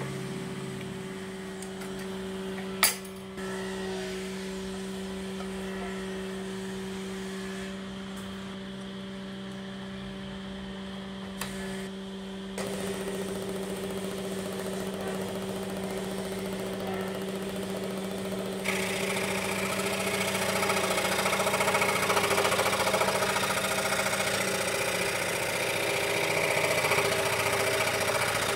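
A steady hum with one sharp click about three seconds in. A little under halfway, the scroll saw starts, its blade running up and down. About two-thirds of the way through, it cuts into the board, and the sawing noise grows louder and hissier.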